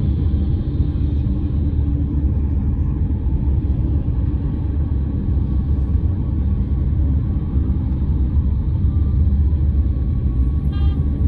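Steady low rumble of a car's tyres and engine heard from inside the cabin while driving along a city road, with a brief higher-pitched tone near the end.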